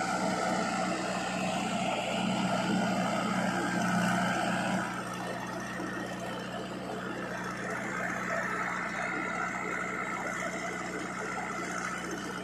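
Diesel engines of a JCB 3DX backhoe loader and a Mahindra Yuvo tractor running steadily together while the backhoe loads soil. The sound is a little louder for the first five seconds, then eases slightly.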